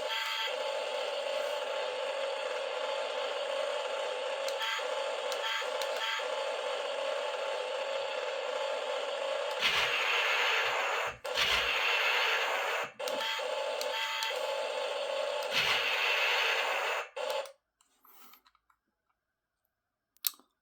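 Toy remote-control battle tank playing its built-in sound effects through a small speaker: a steady simulated engine rumble, with three louder cannon-firing blasts partway through. The sound cuts off about three seconds before the end, followed by a single click.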